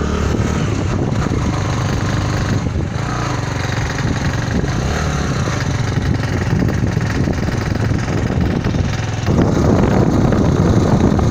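A vehicle engine running steadily with wind buffeting the microphone; the noise grows louder and rougher about nine seconds in.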